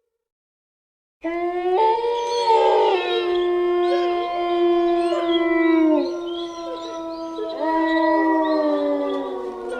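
Wolves howling: after about a second of silence, long overlapping howls start suddenly at several different pitches, each held steady and sliding down at its end, with a fresh howl rising about eight seconds in before the chorus fades.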